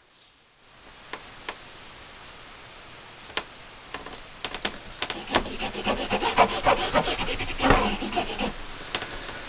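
A clear acrylic quilting ruler shifting and sliding over fabric on a cutting mat, and a colored pencil scratching a mark onto the fabric. A few light clicks come first, then from about halfway a run of irregular scratchy rubbing strokes, loudest near the end.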